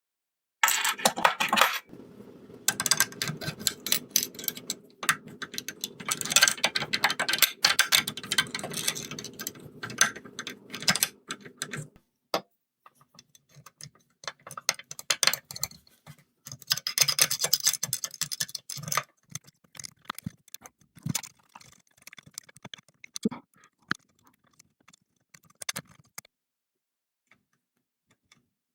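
Steel picking tools clicking and scraping in the keyway of a small Ace four-lever padlock while a tensioner is fitted, sped up: dense rattling clicks for about twelve seconds, then sparser ticks that die away near the end.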